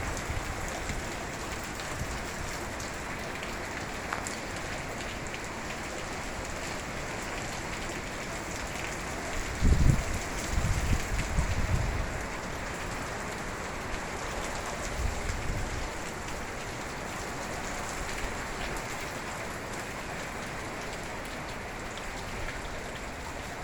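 Hurricane rain falling steadily, with wind gusting onto the microphone in low rumbles about ten seconds in and again a few seconds later.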